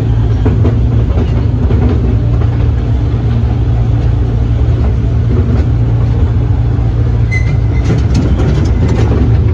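Toy train running along its narrow-gauge track, heard from an open carriage: a steady, loud low drone with rolling noise, and a few sharp clicks near the end.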